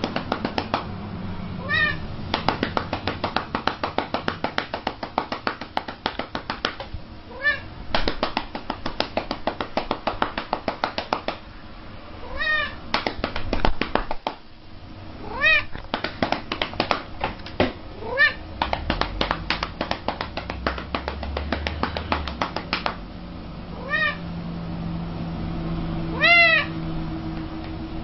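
A calico cat meowing about seven times, each a short call that rises and falls, while a hand pats its back quickly, several slaps a second. The meows come mostly when the patting pauses, as though asking for more.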